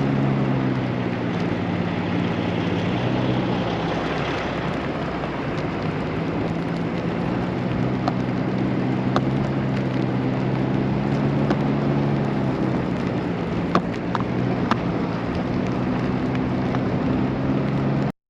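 A motor running with a steady low hum under a constant rushing noise, with a few small clicks. The hum drops out about four seconds in and comes back about halfway through. The sound cuts off abruptly just before the end.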